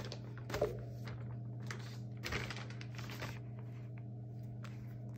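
Soft, faint rustling of a plush fleece throw blanket being handled and unfolded, a few short rustles in the first few seconds, over a steady low hum.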